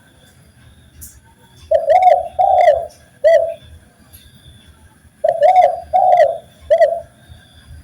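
Spotted dove (tekukur) cooing: two phrases of about four low, rounded coos each, a few seconds apart, the first starting near two seconds in and the second just past five seconds.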